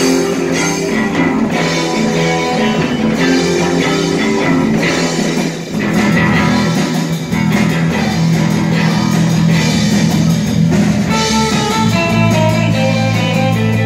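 Live band playing amplified electric guitar with a drum kit.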